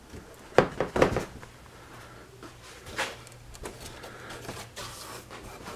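Knocks and light scraping of a fabric-covered pressboard rear deck panel being handled on a workbench: a cluster of clunks about half a second to a second in, and another knock around three seconds.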